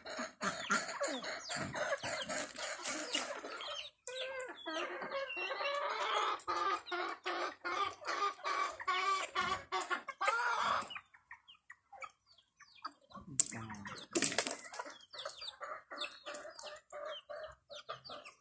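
Chickens clucking steadily in quick, overlapping calls while they feed, with a short lull about eleven seconds in.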